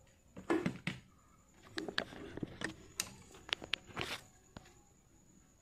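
Handling noises: a string of small sharp clicks and knocks with some rustling, as objects are moved and set down, then quieter near the end.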